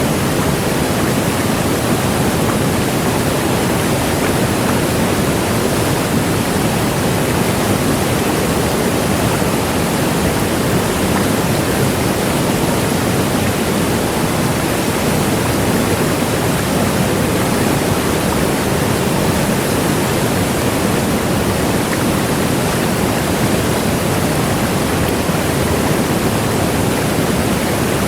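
A large waterfall rushing, a steady, unbroken roar of falling water at an even loudness throughout.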